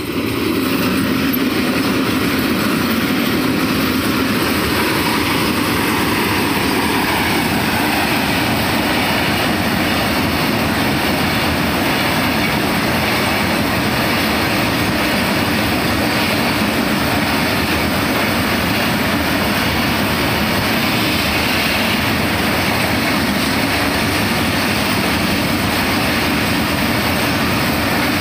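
Indian Railways freight train passing close by, hauled by twin electric locomotives: a loud steady rush of wheels rolling on the rails. In the first few seconds a whine from the locomotives falls in pitch as they go past, then the open wagons keep rolling by steadily.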